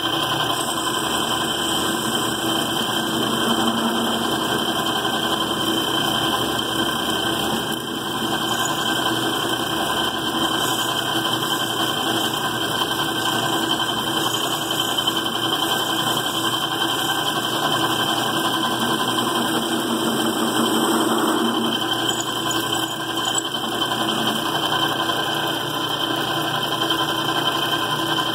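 Worn-out metal lathe running steadily under power, taking a light three-thousandths-of-an-inch cut on a threaded rod.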